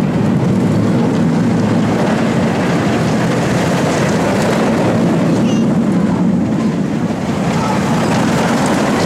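Train of a Vekoma suspended looping coaster running over its steel track: a loud, steady rumble of wheels on the rails.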